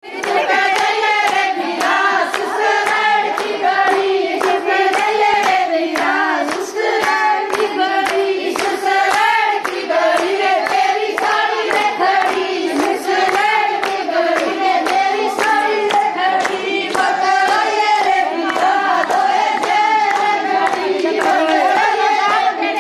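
A group singing a Haryanvi folk song together, with steady rhythmic hand clapping keeping the beat.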